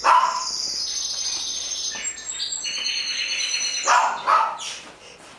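Dog whining in a long, high, wavering whine, then two short barks about four seconds in, while the dogs tug over a toy disc.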